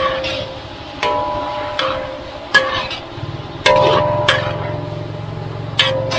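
A metal ladle strikes and scrapes an aluminium wok while stir-frying, about seven knocks, each leaving the wok ringing briefly. A low steady hum joins about halfway through.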